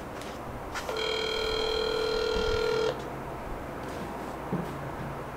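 Phone ringback tone heard through a smartphone's speaker: one steady ring about two seconds long, starting about a second in, which means the call is ringing through at the other end.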